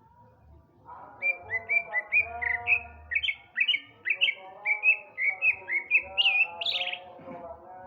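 Male cucak ijo (leafbird) in full song: a fast run of loud, sharply bending whistled notes, about three or four a second, starting about a second in and stopping near the end, the last few notes pitched higher.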